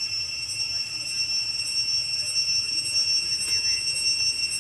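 Insects droning outdoors: a steady, high-pitched, unbroken buzzing.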